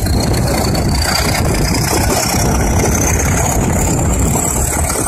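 Nilgiri Mountain Railway train running on a curve, heard from an open carriage doorway: a steady, loud rumble of the coaches on the track and the diesel locomotive ahead. A thin high whine rises slowly in pitch over the whole stretch.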